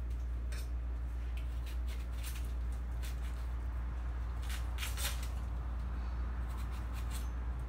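Steady low hum with a few faint, short clicks and light rustles scattered through.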